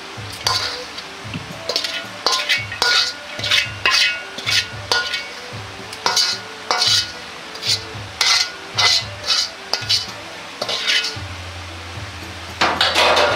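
Metal ladle scraping and clinking against a wok as sticky caramel-coated oat granola is scooped out: a string of sharp scrapes and knocks, one or two a second, with a longer scrape near the end.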